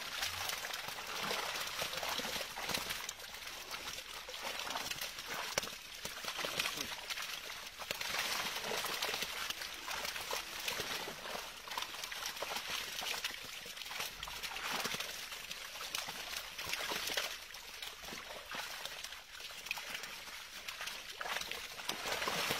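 Water sloshing and trickling as a catch of live fish flaps and splashes inside a fishing net held in shallow water. The sound is steady but uneven, made of many small splashes.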